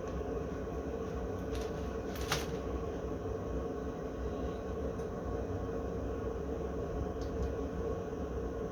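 A steady low rumble and hum with a faint held tone, and a few light clicks, one about two seconds in.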